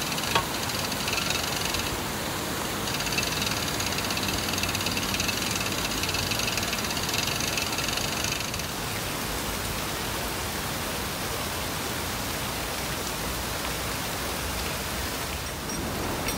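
Steady rush of water through a canal lock's sluices, with a high, even whine over it for the first eight seconds or so and a single knock just after the start.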